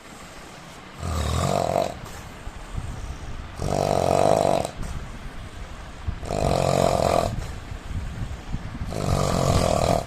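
A man snoring: four loud snores at an even rhythm, about one every two and a half seconds, each lasting around a second, with quieter rumbling breaths between them.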